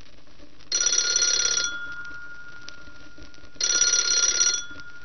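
Telephone ringing for an incoming call: two rings about a second long each, roughly three seconds apart.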